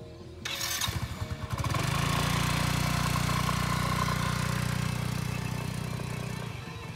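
Yamaha motorcycle engine being started: a second or so of uneven cranking and firing, then it catches about two seconds in and runs steadily, growing quieter near the end as the bike rides away.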